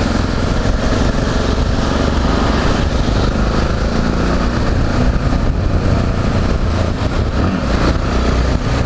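Yamaha XT 660Z Ténéré's single-cylinder engine running steadily at low speed, under a steady rushing noise of wind and wet road on the microphone.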